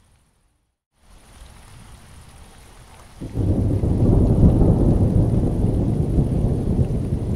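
Rain falling. The sound cuts out for about the first second. From about three seconds in, a loud, sustained rumble of thunder rises suddenly and carries on over the rain.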